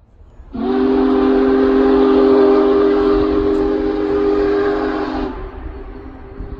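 Union Pacific 4014 Big Boy steam locomotive's whistle sounding one long chord of several tones for about five seconds, starting about half a second in, then dropping to a quieter held tone near the end.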